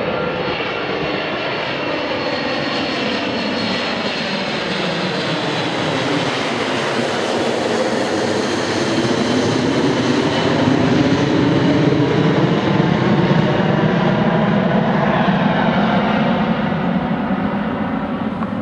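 Boeing E-3 Sentry, a four-engined jet, flying past overhead: the jet noise builds, peaks about twelve seconds in as it passes, then fades as it moves away. A high whine slides slowly down in pitch during the approach.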